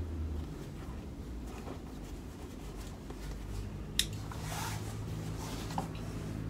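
Small handling sounds of threads being trimmed with snips and a neoprene wetsuit being moved at a sewing machine: a sharp click about four seconds in, then a brief rustle, over a low steady hum.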